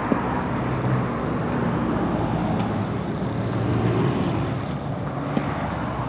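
Roadside traffic: a motor vehicle's engine hums steadily, with wind noise on the microphone. A few faint light clicks are heard, about once every two to three seconds.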